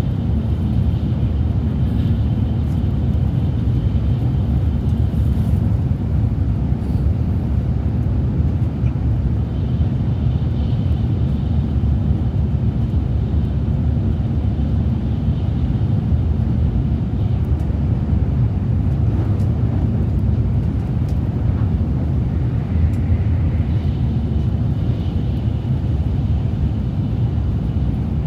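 Steady, continuous low rumble of vehicle noise, even in level throughout, with no speech over it.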